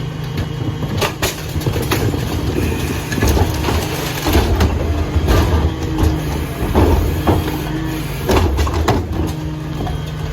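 Dennis Eagle AirFlo rear-loader garbage truck running its packer: a steady low engine and hydraulic hum, with repeated knocks and clanks as refuse is crushed in the hopper. The sound is busiest in the middle.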